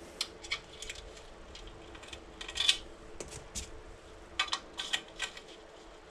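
Steel bicycle spokes clicking and clinking against the hub flange and each other as they are laced into a wheel: scattered short metallic ticks, bunched a little before halfway and again later on.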